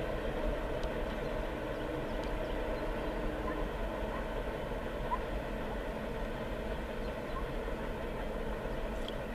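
Steady rumble of a freight train's last cars rolling away on the rails, easing off slightly as they recede.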